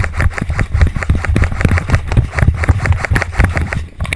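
Footsteps of a player running at a sprint, a quick even run of thuds with gear clattering at each stride.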